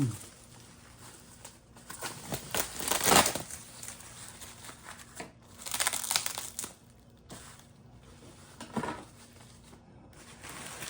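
Packing material being handled and pulled away by hand, crinkling and rustling in irregular bursts, loudest about three seconds in and again around six seconds, with a sound like tearing.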